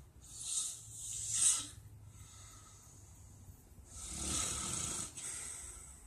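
A man snoring in his sleep: one snoring breath in the first second and a half, then a longer, fuller one about four seconds in.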